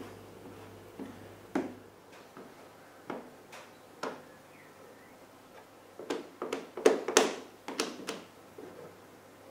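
Scattered small clicks and taps of a squeegee and fingers working wet clear protective film down onto a motorcycle's fuel tank and plastic fairing, with a quicker run of sharper taps in the last third.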